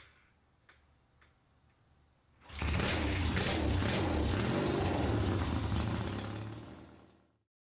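After a near-silent start with a few faint clicks, an engine cuts in suddenly about two and a half seconds in and runs steadily at an even level, then fades away near the end.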